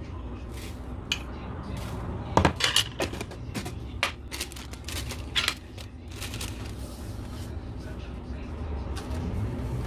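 A metal spoon clinking against small glass jars while dry ingredients are spooned into a mixing bowl: a cluster of sharp clinks and taps in the middle, over a low steady hum.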